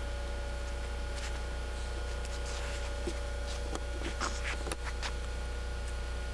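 Steady low hum and hiss of an old camcorder recording, with a few faint rustles and small clicks between about three and five seconds in.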